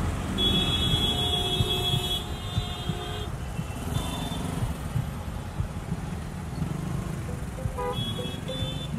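Busy road traffic with a vehicle horn held for about three seconds near the start and short honks near the end.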